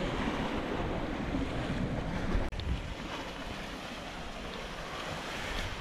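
Wind buffeting the camera's microphone over the wash of ocean surf against a lava-rock shoreline. The noise is steady, with a sudden break about two and a half seconds in where the shot cuts.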